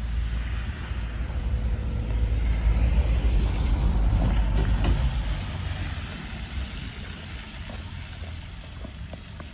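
A motor vehicle passing by, its rumble swelling to a peak midway and then fading away.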